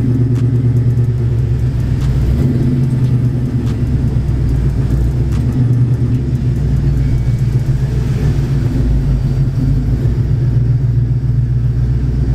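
Ford Mustang's 4.6-litre two-valve V8 running steadily at low revs, heard from inside the cabin.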